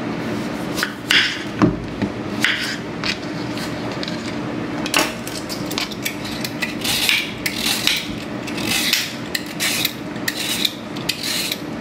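Knife cutting raw vegetables on a cutting board: irregular knocks of the blade hitting the board, some with short slicing swishes.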